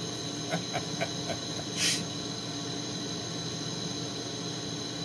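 Propane-oxygen glassworking torch hissing steadily as its flame heats the end of a clear glass rod. A few faint clicks come about half a second to a second and a half in, and a short sharp hiss near two seconds.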